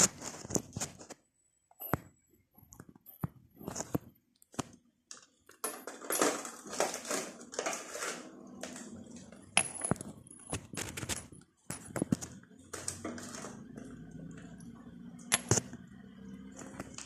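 Irregular clicks, taps and light metallic clinks of steel piston rings being worked by hand onto a VW Golf Mk1 1.8 piston, mixed with handling rustle. A faint steady low hum comes in during the second half.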